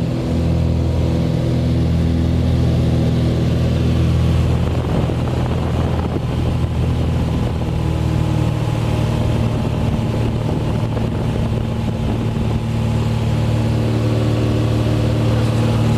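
Cessna light aircraft's piston engine and propeller at full takeoff power, heard inside the cabin as a loud, steady drone, as the plane rolls down the runway and climbs away.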